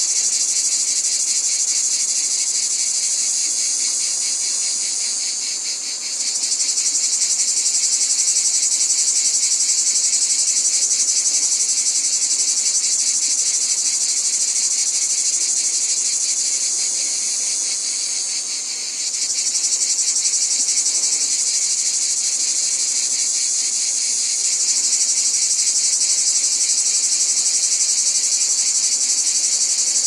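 Dense insect chorus: a continuous high-pitched, fast-pulsing trill that fades briefly twice and swells back.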